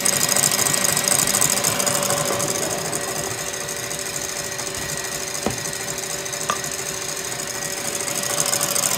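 KitchenAid stand mixer running steadily, its wire whisk beating egg whites in the steel bowl: a constant motor hum with a high hiss, a little softer in the middle and louder again near the end. Two light knocks in the second half.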